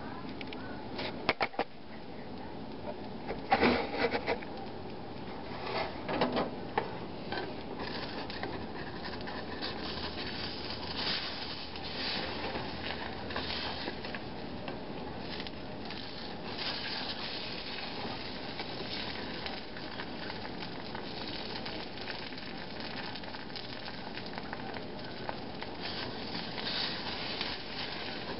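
An egg frying in oil in a pan over a gas flame: steady sizzling and spattering with many small crackles. A few clicks and knocks come in the first several seconds.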